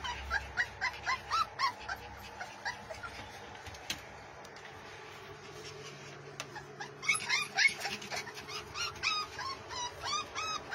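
A litter of young pit bull puppies crying in a rapid string of short, high squeaks. There are two bouts: one at the start, and a louder one after a lull in the middle.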